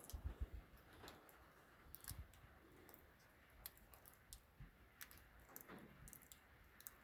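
Faint, irregular ticking of raindrops and drips hitting a metal barn roof, over a soft hiss of rain. A few dull low thumps come in the first half second and again around two seconds in.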